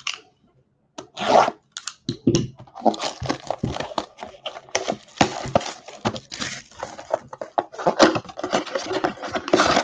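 Plastic shrink wrap being torn and crinkled off a cardboard trading-card blaster box, then the box's cardboard flap being opened, a dense irregular crackling with sharp snaps that starts about a second in.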